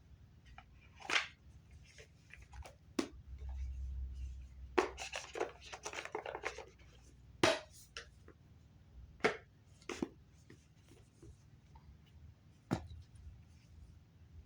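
Scattered handling noises in a small room: sharp clicks and knocks at irregular intervals, with a denser patch of rustling and handling in the middle.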